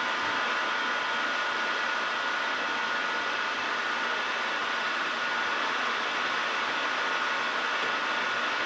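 Graziano SAG 12 engine lathe running steadily with its spindle at 800 RPM, giving a high, even whine over a steady mechanical hiss.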